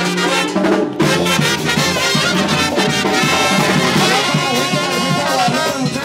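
Mexican brass band (banda) music playing loudly, trumpets and trombones over a drum.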